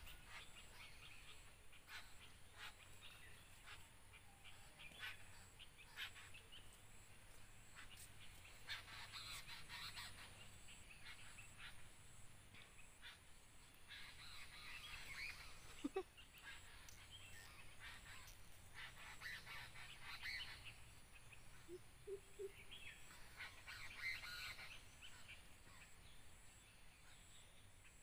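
Near silence outdoors: faint bird chirps and light rustling ticks in short bouts, with a brief low call about halfway through and a short double note a little later.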